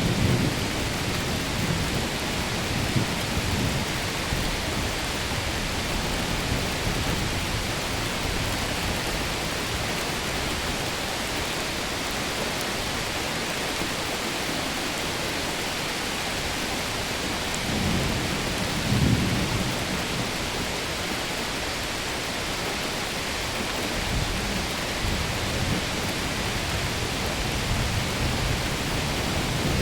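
Steady rain hissing, with low rumbles of thunder swelling and fading several times, the clearest about two-thirds of the way through.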